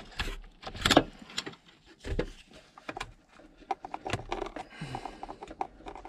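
A metal pick and fingers clicking, tapping and scraping on the plastic ignition switch and steering-column parts while the switch is worked into place: a quick run of small clicks with a couple of louder knocks.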